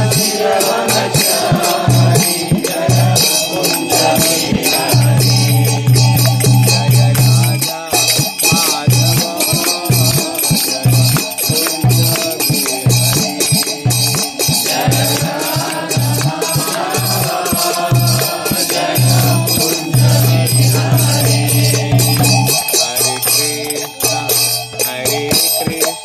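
Devotional chanting (kirtan) with a fast, steady jingle of hand cymbals or shakers and a recurring low drone or drum tone.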